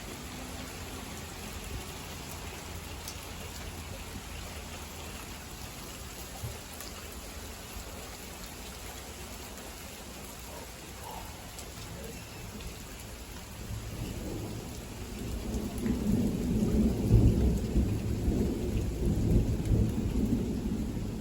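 Steady heavy rain falling. About two-thirds of the way through, a long low rumble of thunder builds, grows loud and keeps rolling until the end.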